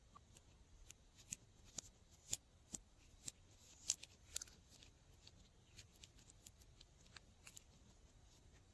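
Slime being worked by hand, giving off irregular sharp little clicks and pops, roughly one or two a second.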